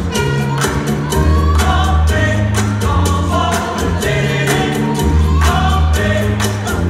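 Latin dance music with a sung vocal over a bass line and a steady percussion beat.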